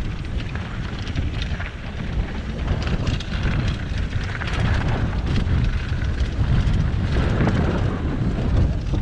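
Wind buffeting the microphone of a helmet-mounted camera on a mountain bike riding down a dirt trail, with tyres running over dirt and loose stones and frequent short knocks and rattles from the bike.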